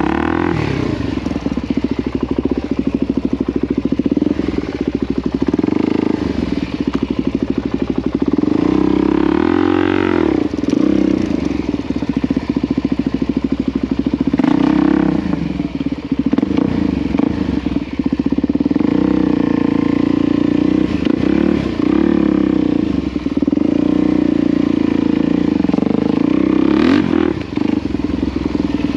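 Motorcycle engine running while being ridden. Its pitch climbs and drops again and again as it revs up and backs off.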